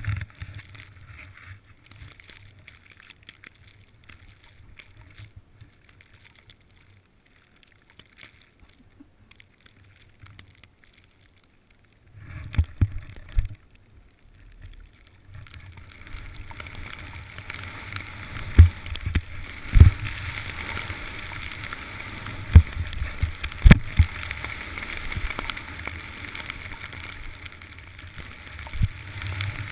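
Snowboard riding through powder snow heard from a body-worn camera: mostly quiet for the first dozen seconds, then from about halfway a steady rushing hiss of board and wind on snow, broken by several sharp knocks as the rider hits bumps.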